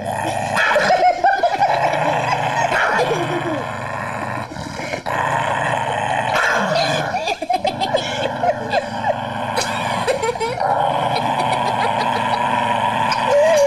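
A dog whining and growling over a chew bone, in short wavering calls that keep coming one after another.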